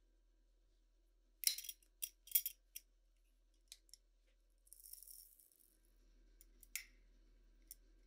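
Metal wire clasp and glass lid of a clip-top glass jar being unlatched and opened: a quick cluster of sharp metallic clicks and rattles about a second and a half in, then a few lighter clicks. Around five seconds in the bath salt granules inside shift briefly with a short rattling hiss as the jar is tilted, followed by a couple of single glassy clicks.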